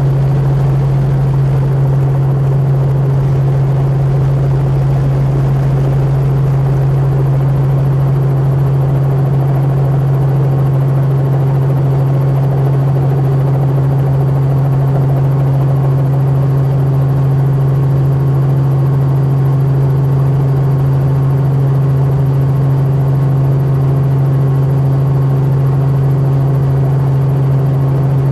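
Helicopter in flight, heard from inside the cabin: a loud, steady drone with a strong low hum that holds level throughout.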